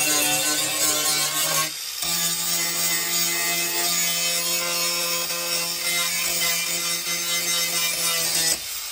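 Corded angle grinder with an abrasive disc running at a steady high whine, grinding the paint off a dented car rear quarter panel down to bare metal, with a harsh scraping hiss. It cuts out briefly about two seconds in and stops shortly before the end.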